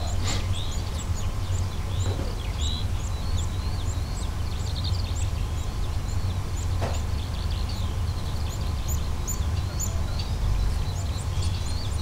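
Small birds chirping in quick, repeated high notes over a steady low rumble.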